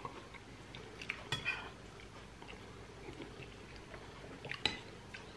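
Metal spoon clinking and scraping against a glass bowl of bean soup, a few light clicks about a second in and again near the end, with quiet chewing between.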